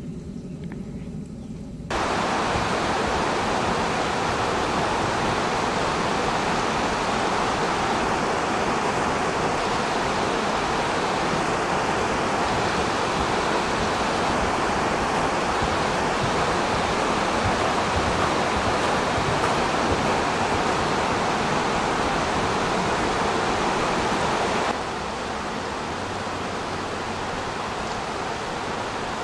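Steady, even hiss with no distinct sounds in it, switching on abruptly about two seconds in and dropping to a somewhat quieter hiss near the end.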